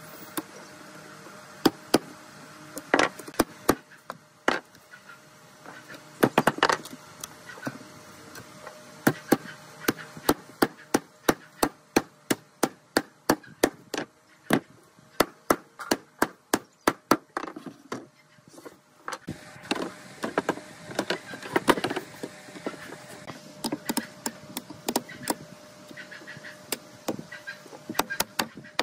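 Wood-on-wood knocks as a slatted wooden panel is driven together with a wooden mallet and jolted against the workbench to seat the slats in their slotted rails. The knocks are sharp and scattered at first, then come in a quick even run of about two or three a second through the middle.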